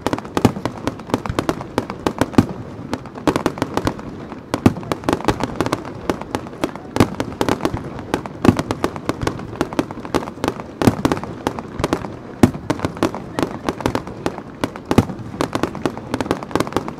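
Aerial fireworks shells bursting in quick succession, a dense run of sharp bangs and crackles several a second, with heavier booms standing out every second or two.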